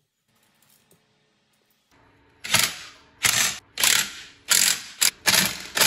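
Hand ratchet wrench clicking in quick, repeated strokes while tightening the motor mount bolts. The strokes begin about halfway through, after a near-silent start, and come roughly one every half to three-quarters of a second.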